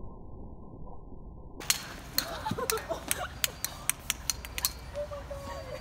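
A run of sharp clicks and clinks, about a dozen, starting about a second and a half in, with voices in the background.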